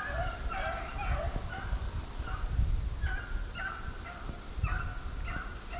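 Hunting dogs baying in runs of short, quick barks, several a second, in bursts with brief pauses, over a low rumble on the microphone.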